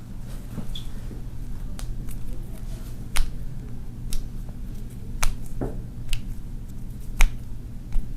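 A series of about six sharp cracks, roughly a second apart: joints popping (cavitating) under chiropractic adjustments.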